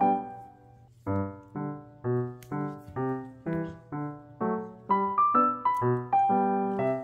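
Background piano music: notes and chords struck about twice a second, each dying away, with a brief gap about a second in and busier playing from about five seconds.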